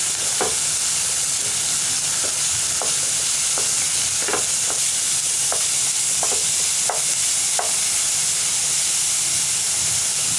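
Chopped onion, garlic, black pepper and cumin sizzling in oil in a non-stick frying pan: a steady hiss. The onion and spices are stirred with a wooden spatula, whose short scraping strokes come every half second to a second.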